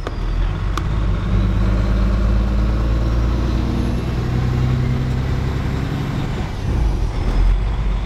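Diesel engine of a Kenworth semi truck heard from inside the cab, running steadily on the road, with the engine note changing for a manual gear shift about two-thirds of the way in.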